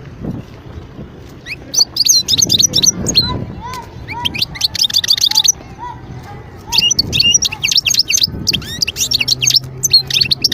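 European goldfinch singing: fast, high-pitched twittering phrases in three bursts, with short pauses between them.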